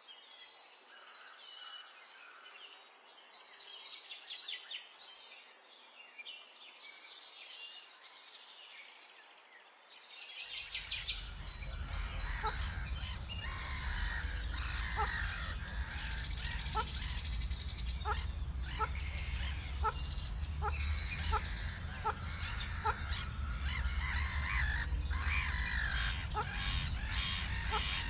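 Many wild birds chirping and singing together. About ten seconds in, the chorus grows louder and denser, with a steady low rumble under it and a short note repeated about once a second.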